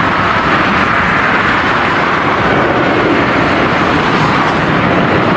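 Jet airplane engine noise, a steady rushing that fades out near the end.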